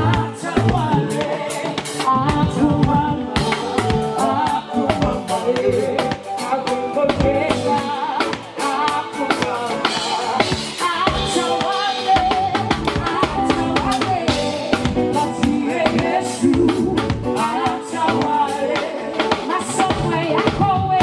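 A live gospel band playing an instrumental stretch, with a full drum kit (snare, bass drum and rimshots) keeping a steady beat under pitched instruments.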